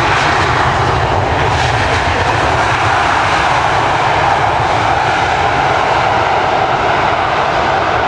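Jet engines of a four-engine wide-body airliner coming in to land. The engines make a loud, steady noise, with a strong band of sound in the middle and a deep rumble underneath.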